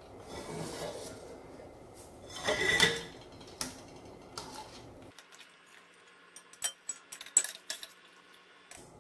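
Wire-mesh skimmer scraping and clinking against a stainless steel stockpot while cooked vegetables are scooped out of sauce, with a louder clank about three seconds in and a run of sharp metal taps in the second half.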